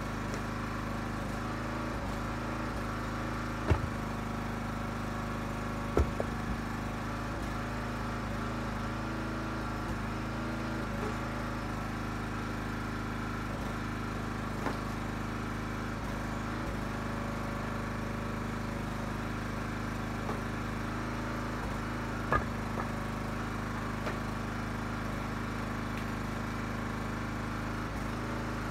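Huskee 35-ton log splitter's gas engine running steadily. A few sharp wooden knocks from the ash blocks being split and handled, the loudest about 4 and 6 seconds in and again after about 22 seconds.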